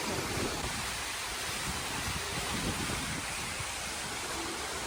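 Steady rushing air and hiss inside a moving Skyliner gondola cabin, with uneven low rumbling underneath like wind buffeting the microphone.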